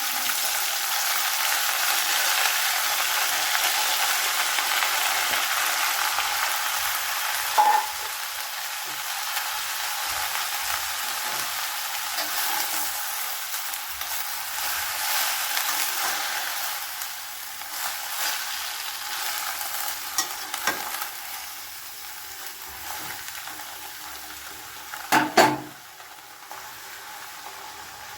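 Food sizzling in hot oil in a pan while it is stirred with a spatula, the sizzle gradually dying down. A short clink about a third of the way in and a louder clatter of metal near the end.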